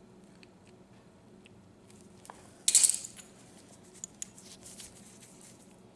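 Small metal clicks and a short, loud scrape a little before halfway through, from a new spark plug being worked with a gap gauge while its electrode gap is set.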